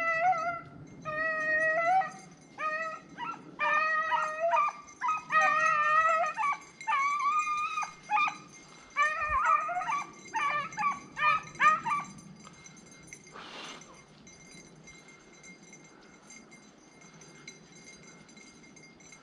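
Rabbit-hunting hound baying on a rabbit's trail, a run of repeated howling yelps that stops about twelve seconds in.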